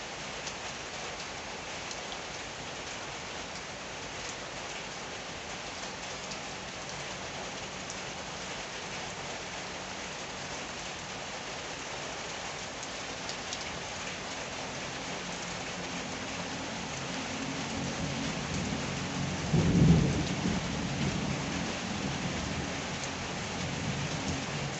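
Rain falling steadily. A low rumble of thunder builds from about fifteen seconds in and peaks sharply about twenty seconds in.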